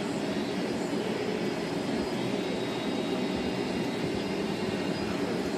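Steady ventilation noise, an even rushing hum like an air-conditioning unit running, unchanging throughout.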